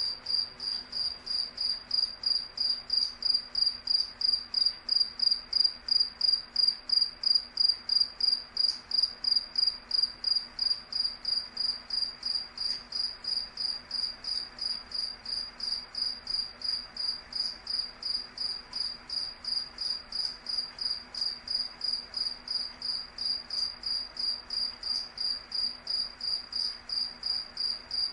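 A cricket chirping steadily: one high-pitched chirp repeated evenly, about three times a second.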